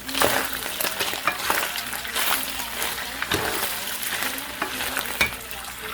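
Food sizzling in a hot pan while being stirred, with a steady hiss and frequent sharp scrapes and clicks of the utensil against the pan.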